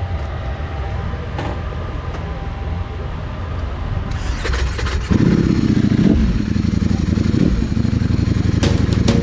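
Ducati Panigale V4 SP's 1103 cc V4 engine running at idle, then revving up louder about five seconds in as the bike pulls away.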